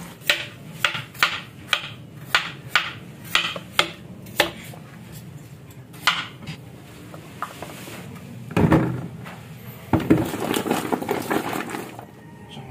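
Kitchen knife cutting small potatoes on a plastic cutting board: sharp chops about two a second for the first few seconds, then a few slower single cuts. Near the end, a louder rustling clatter as the cut potatoes are tipped into a disposable aluminium foil tray.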